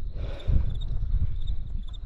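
Insects chirping, a thin high chirping that repeats throughout, over a low rumble that swells about half a second in.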